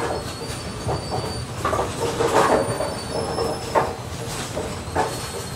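Bowling alley din: AMF 82-90XL pinspotters running with a steady mechanical rumble and hum, with scattered knocks and clatter of balls and pins, the busiest burst about two seconds in.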